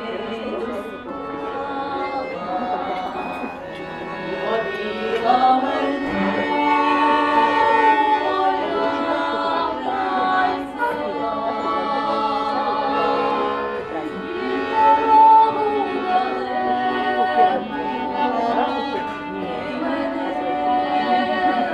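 Two women singing a folk song together, accompanied by an accordion.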